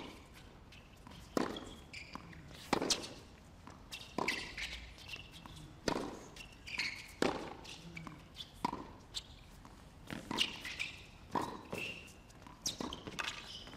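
Tennis rally on a hard court: racket strikes on the ball and ball bounces, sharp single knocks coming about once a second as the ball goes back and forth between the two players.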